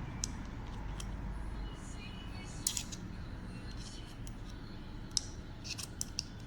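Small, sharp clicks and taps from the metal parts of a titanium-handled folding knife being fitted back together during reassembly. The clicks are scattered, with one near the start, one about midway and a quick cluster near the end, over a low steady hum.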